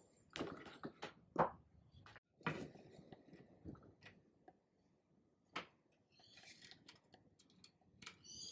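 A few light knocks and taps of a wooden chair frame being handled on a rubber bench mat, the sharpest knock about a second and a half in. Brief faint high chirps come near the end.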